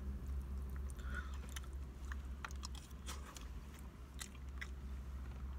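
Close-up chewing and biting on a mouthful of steak teriyaki and rice, with scattered small clicks, over a steady low hum.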